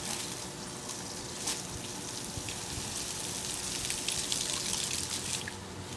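Garden hose spraying a stream of water that hisses and patters onto grass, with small crackling splashes. It grows louder in the second half and drops back shortly before the end.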